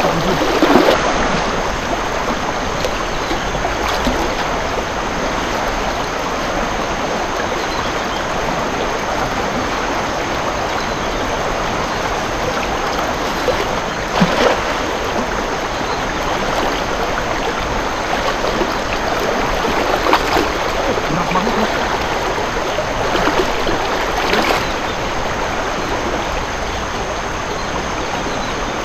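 Fast-flowing floodwater of a river rushing steadily, with a few splashes: a wader moving through the water, and a cast net landing about halfway through.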